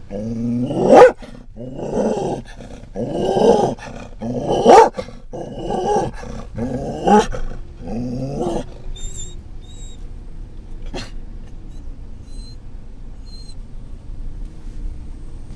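Scottish Terrier barking and growling hard, about eight rough barks in quick succession, falling silent a little past halfway. A van's steady low running noise continues beneath, with one sharp click near the end.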